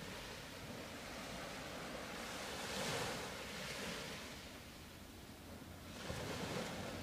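Sea waves washing onto a beach, the surf swelling about three seconds in and again about six seconds in.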